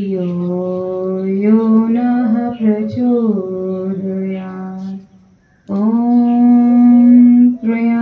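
A single voice chanting a prayer mantra in long held notes, gliding slightly in pitch, with a short break about five seconds in before the next line begins.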